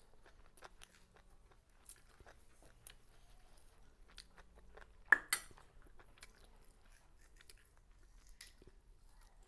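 Close-up chewing and small mouth clicks of someone eating rice and pork curry by hand. About five seconds in come two sharp metallic clinks close together, the aluminium pestle knocking against its metal mortar bowl as it is set back in.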